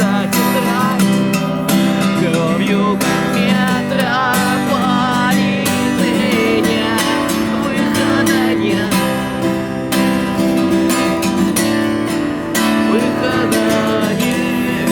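Acoustic guitar strumming chords, an instrumental passage of a song.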